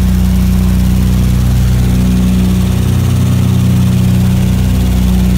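The radial engines and propellers of a WWII B-25 bomber running steadily in flight, heard from inside the aircraft as a loud, even drone with a slight swell about two seconds in.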